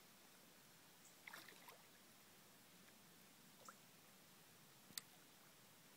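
Near silence: faint outdoor background with a few soft, brief clicks, a small cluster of them after about a second and a sharper single one near the end.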